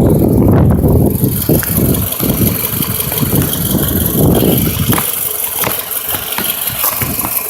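2008 Toyota RAV4 engine running unevenly with a misfire, louder for about the first five seconds and a little quieter after that.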